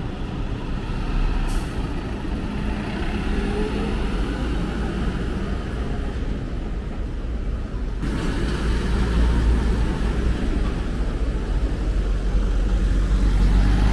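Road traffic: a large truck's engine running as it drives off through an intersection, with a car passing close by near the end, when the rumble is loudest.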